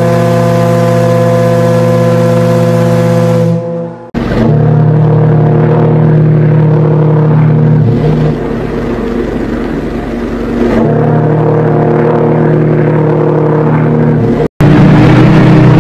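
Steam whistles of Olympic-class ocean liners, each a deep chord of several steady tones. One long blast stops about four seconds in. A second whistle then sounds two long blasts of about four seconds each, with a short break between them.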